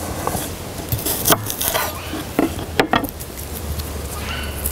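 Kitchen knife knocking several times on a wooden cutting board while a garlic clove is cut for peeling, over a low steady rumble.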